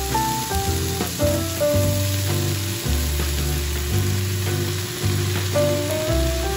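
Sliced onions and thin pork slices sizzling as they fry in a pot, over background music with steady notes and a bass line.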